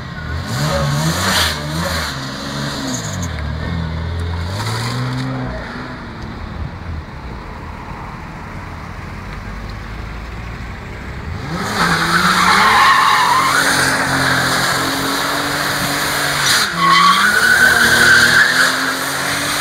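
Volvo 960 T6 engine revving up and down, then tyres squealing loudly over the revving engine for the last third as the car spins doughnuts in its own tyre smoke.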